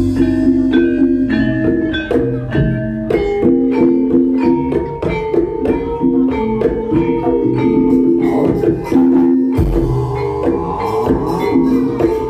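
Live Banyumasan gamelan music accompanying the dance: quick repeated melodic strikes on keyed percussion, with drumming underneath.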